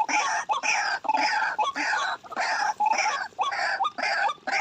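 White-breasted waterhen (ruak-ruak) calls: a loud, steady series of harsh repeated notes, about two a second.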